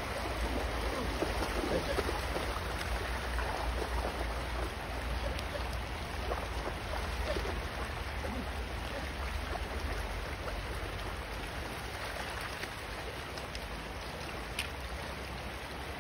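Shallow river running steadily over stones, with a Belgian Malinois splashing through the water in the first few seconds.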